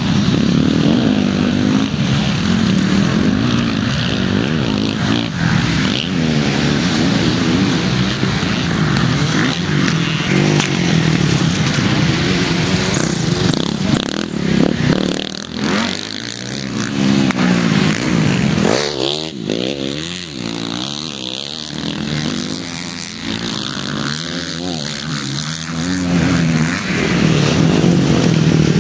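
Motocross bike engines revving up and down again and again as riders race around the dirt track, each rise and fall a gear change or throttle blip. The engines grow louder near the end as two bikes come up the rise close by.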